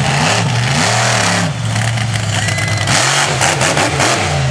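Monster truck engine revving hard, its pitch rising and falling over and over, with a brief easing off about a second and a half in before it builds again as the truck launches off a jump.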